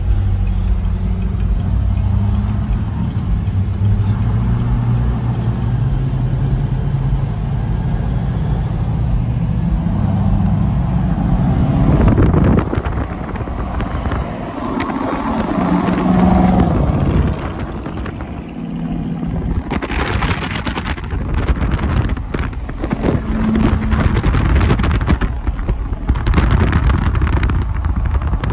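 Pickup truck driving on a road, heard from inside the cab: engine and road noise, with the engine note climbing gently over the first ten seconds as it picks up speed. From about twenty seconds in, wind gusts across the microphone.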